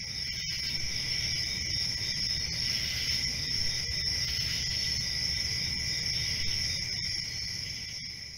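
A steady chorus of crickets chirping without a break, with a low rumble underneath, fading out near the end.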